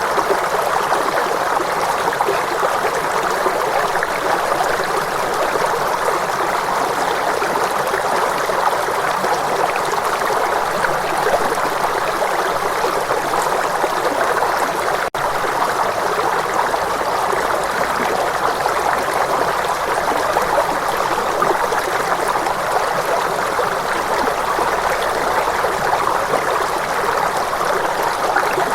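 Steady rushing of running water, like a stream, with no bowl tones or other pitched sound; one brief dropout about halfway through.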